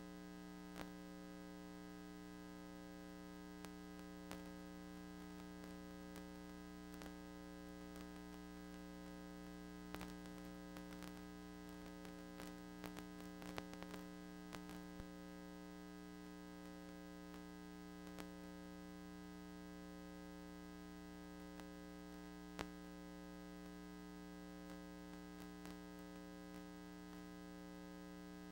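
Faint steady electrical hum made of several even tones, with scattered clicks and crackles that cluster around the middle and one sharper click about two thirds of the way through. This is the background noise of a VHS tape playing on past the end of its programme.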